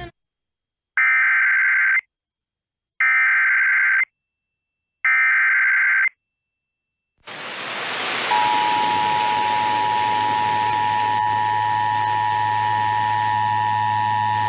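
Emergency Alert System data tones: three short bursts of warbling digital tones about a second apart, the end-of-message code. Then radio static rises, and about a second later a steady two-tone EAS attention signal starts over the static.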